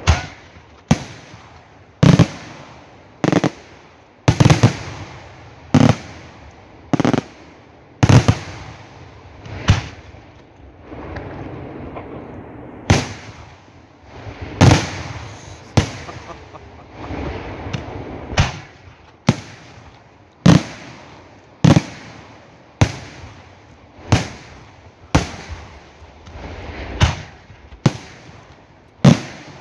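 Aerial firework shells bursting in quick succession, a sharp bang about every second with a trailing rumble and haze of noise between them, broken by a short lull of about two seconds around the ten-second mark.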